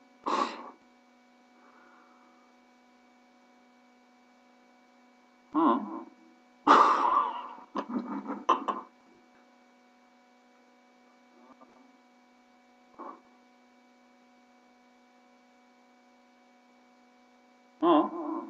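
Steady electrical hum throughout, broken by several short bursts of a man's voice: one right at the start, a longer run of them around the middle, a couple of faint ones after, and one more near the end.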